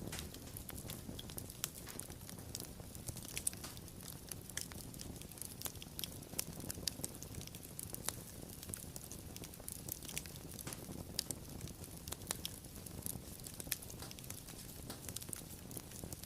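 Wood fire burning steadily: a low rumble of the flames under dense, irregular crackles and pops from the burning wood.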